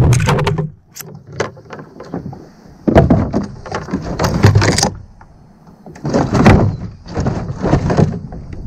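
Knocks, thumps and rattles against a molded plastic boat hull, in three bouts of handling noise with quieter gaps between them.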